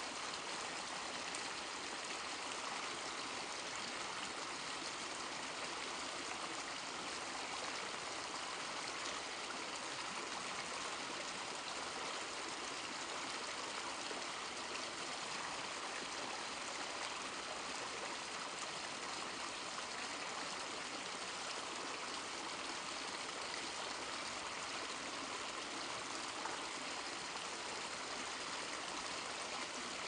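Waterfall with several cascades falling into a pool, a steady, even rush of falling and splashing water with no change in level.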